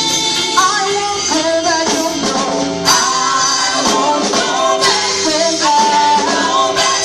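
Gospel choir singing with live band accompaniment of guitar and drums.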